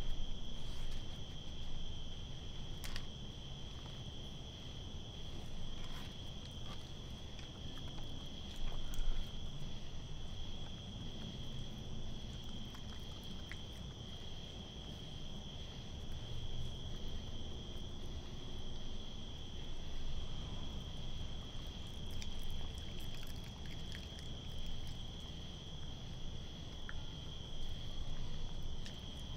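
A steady chorus of crickets trilling in one unbroken high tone, over a low rumble with a few faint scattered clicks.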